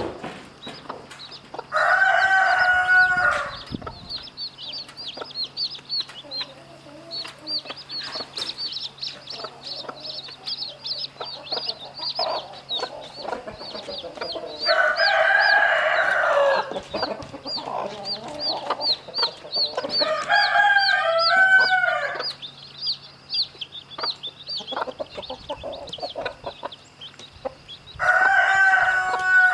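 Chicks peeping continuously in rapid, high, falling cheeps, while a rooster crows four times, each crow lasting about one and a half to two seconds.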